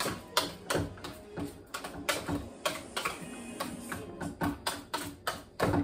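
A spoon knocking and clicking against the pot while stirring mashed potatoes, with irregular sharp taps several times a second over background music.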